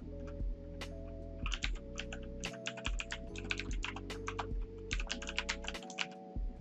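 Typing on a computer keyboard: quick runs of key clicks broken by short pauses, over background music with chords that change every second or so.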